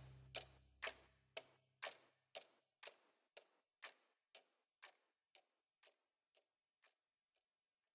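Faint, steady ticking, about two ticks a second, growing fainter until it dies away near the end. A low held musical chord fades out under the first few ticks.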